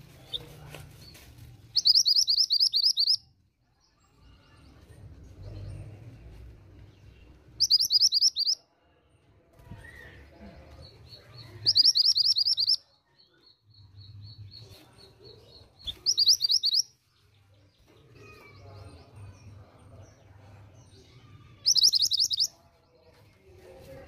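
Female mantenan gunung (a minivet) calling: five short, high, rapid trills, spaced about four to six seconds apart. A faint thin, high pulsing note runs between the third and fourth trill.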